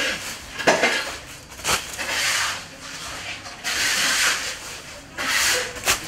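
Shovels scraping and scooping through heaps of small fish in a concrete vat: a couple of sharp knocks in the first two seconds, then three longer rasping scrapes.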